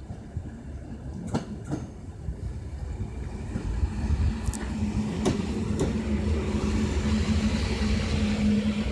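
EN57AL electric multiple unit approaching and running past close by. Its steady hum and running noise grow louder from about four seconds in, with a few sharp clicks along the way.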